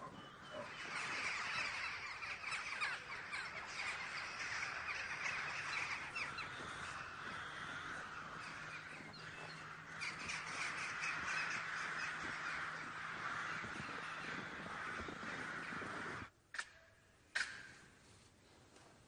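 Many crows cawing at once, their calls overlapping into a continuous chatter. It cuts off abruptly about sixteen seconds in, followed by a single short click.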